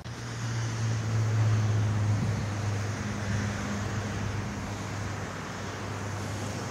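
Freight train's boxcars rolling past, their wheels running on the rails in a steady rumble with a low hum. It swells a little about a second in, then eases.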